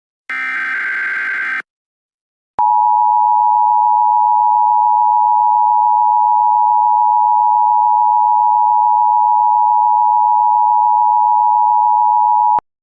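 Emergency Alert System tones: the last burst of the warbling digital SAME header, about a second and a half long. After a short gap comes the EAS two-tone attention signal, a loud steady dual tone held for about ten seconds and then cut off abruptly.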